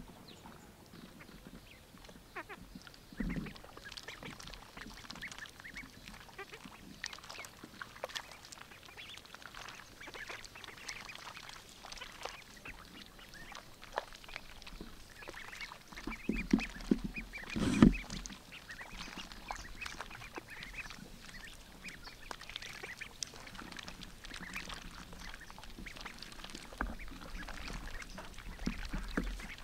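White domestic ducks quacking while they feed in shallow muddy water, with many short scattered clicks and a louder low thud about eighteen seconds in.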